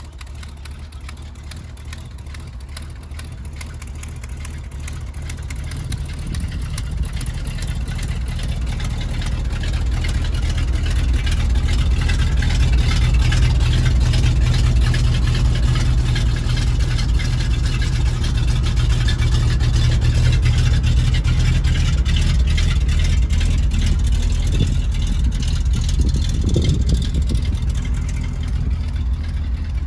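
The truck's 366 gas V8 engine running steadily. It grows louder over the first dozen seconds, holds, then eases slightly near the end.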